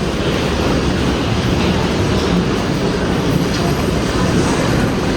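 Steady rumble and rattle of a moving vehicle heard from inside it.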